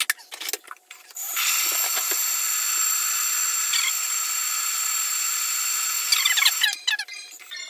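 All-in-one kitchen machine blending a protein shake in its steel jug: a few clicks and knocks as the lid is closed, then the blade motor runs at high speed with a steady whine for about five seconds and stops, followed by a few clicks and rattles.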